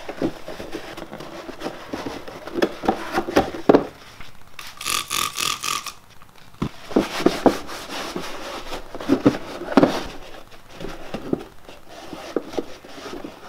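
A cloth rag rubbing and scrubbing inside the plastic cup holder of a car's center console, with scattered knocks and scrapes as the plastic piece is handled, while lacquer-loosened grime is wiped out. A brief higher-pitched sound comes about five seconds in.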